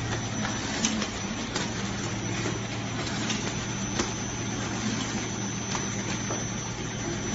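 Semi-automatic bread bag clip machine running with a steady motor hum, with sharp clicks at uneven intervals of about a second as it snaps clips onto bag necks.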